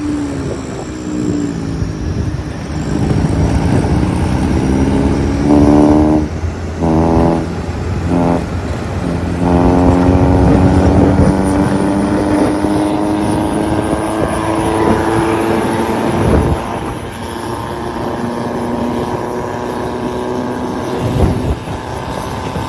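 Diesel road vehicle engine running, with a few short surges and then a longer stretch of engine tone that slowly rises in pitch.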